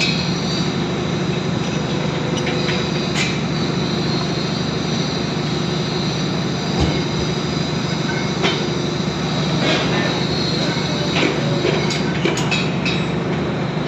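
Construction machinery running steadily: a motor's continuous hum under a high, squealing whine, with a few metallic clicks and knocks near the end.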